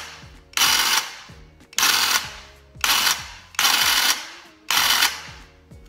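Graco TrueCoat 360 VSP handheld airless paint sprayer running in five short bursts, about one a second, each cut off and fading, as the trigger is pulled and released. It is being primed to purge air from the pump before spraying.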